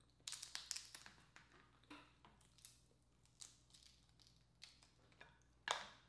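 Dungeness crab shell being cracked and picked apart by hand: a quick flurry of small cracks and snaps in the first second, then scattered sharp clicks, the loudest one near the end.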